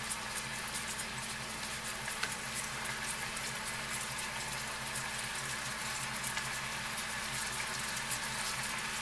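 Beef skewers frying in a pan of bubbling honey-soy marinade: a steady sizzle with many fine crackles and pops as the sauce bubbles over raised heat.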